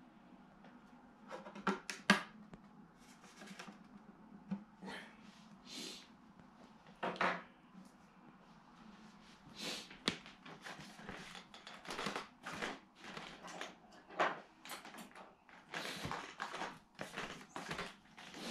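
Handling noises: a string of knocks, scrapes and rustles as a black box-shaped cabinet is moved and set down, with clothing rustle and footsteps. Sharp clicks and thumps come throughout and are most frequent in the second half.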